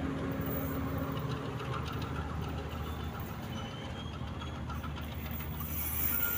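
Coaches of a passenger train rolling past close by, the wheels running and clicking over the rails under a steady low diesel engine hum.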